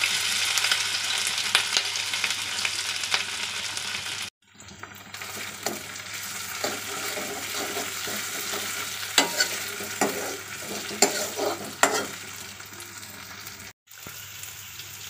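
Grated ginger sizzling in hot oil in a steel kadai, loudest at first, while a steel ladle stirs it with scraping clicks against the pan. The sound cuts out briefly twice, about four seconds in and near the end.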